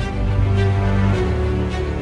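Background music: sustained chords over a deep bass, the bass note changing a little over a second in.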